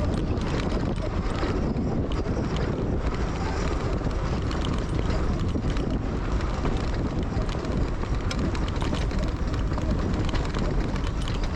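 Wind rushing over the microphone and tyres running fast over a rocky dirt trail on a Zero FX electric dirt bike, with many small knocks and clatters from stones and the bike.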